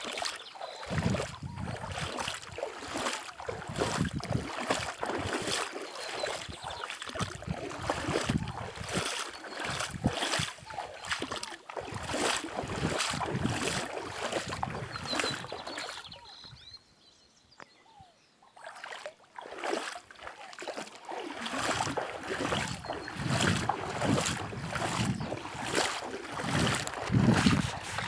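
River water splashing and sloshing in a busy, irregular run of strokes, broken by a brief near-quiet pause about two-thirds of the way through.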